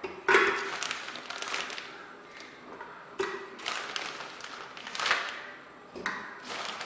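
Pieces of raw chicken breast dropped by hand into a pressure cooker, several separate thuds and taps against the pot.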